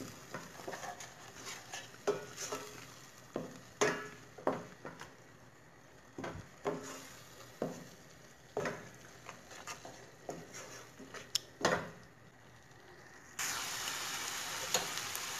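Wooden spatula scraping and knocking against a stainless steel pot in irregular strokes as spices are stirred into an onion-tomato masala. About two seconds from the end, a steady sizzle of the masala frying in oil starts abruptly.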